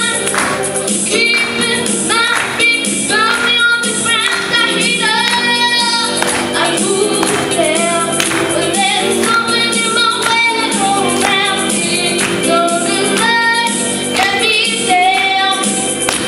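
A young girl singing a song into a handheld microphone, amplified, over musical accompaniment with a steady beat.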